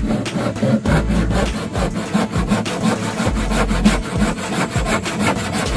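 Handsaw cutting a wooden boat plank in steady, rapid back-and-forth strokes.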